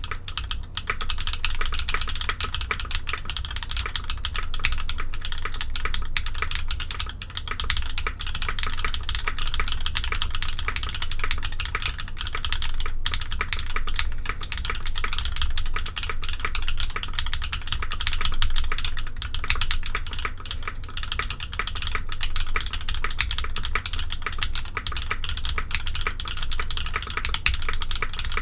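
Continuous fast typing on a mechanical keyboard fitted with ABS keycaps: a dense, unbroken stream of key clacks.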